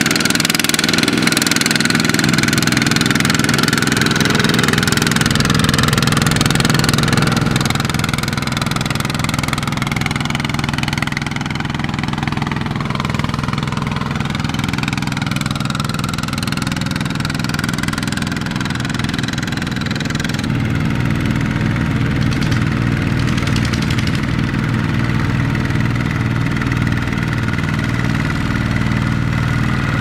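Single-cylinder diesel engine of a two-wheel walking tractor running steadily under load, hauling a loaded trailer through mud. The engine note changes about two-thirds of the way through.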